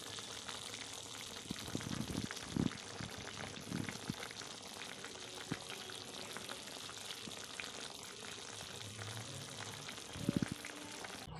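Cauliflower curry (fulkopi ko jhol) simmering in a wok: a steady sizzling hiss full of small bubbling pops, with a few louder pops about two seconds in and again near the end.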